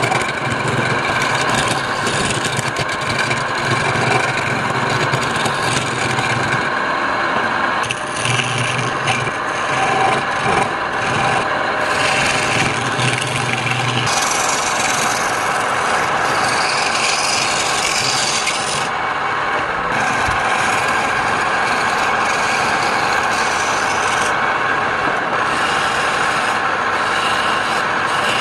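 Wood lathe running, with a turning tool cutting the spinning wood, a rasping scrape that comes and goes in spells over the steady hum of the motor.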